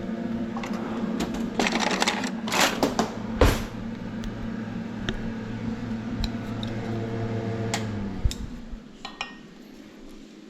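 A steady electric hum from a kitchen appliance, with clinks and knocks of utensils or cookware, the loudest about three and a half seconds in. The hum cuts off suddenly about eight seconds in.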